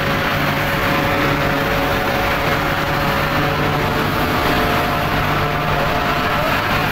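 Steady drone of heavy industrial machinery on a steel plant's casting floor: a constant hum with a couple of held, whining tones above it, unchanging throughout.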